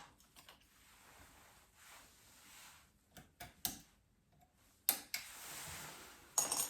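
Scattered light clicks and knocks with soft rustling between them, from hands working glued fiberglass wall covering around a loosened light switch.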